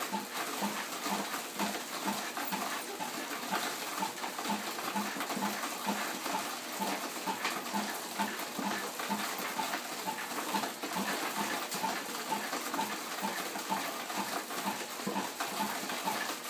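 Bicycle-driven tabletop rice huller running while short-grain rice is fed through its rollers. A regular beat of about three short pulses a second sits over a steady rushing noise.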